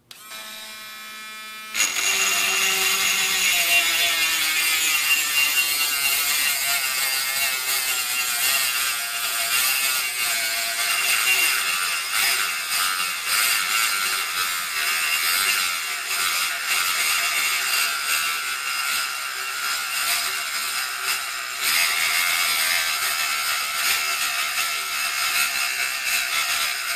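Drill Master rotary tool motor spinning up with an even whine, then from about two seconds in its small cut-off wheel grinding steadily into a nail held in a vise. The motor bogs down quite a bit under the load and doesn't power through.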